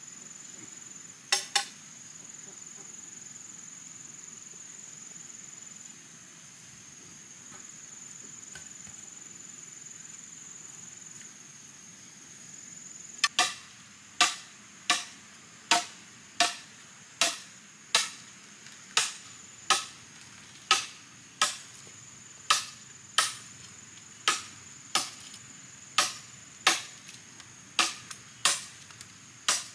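Steady high-pitched insect drone, with two quick sharp blows about a second in. Less than halfway in, a hand tool starts striking sharply and evenly, about one and a half blows a second.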